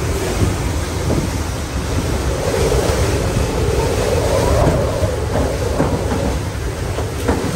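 Hurricane Roslyn's winds and driven rain, buffeting the microphone, with a gust building in the middle. A few sharp knocks come through, near the start and near the end.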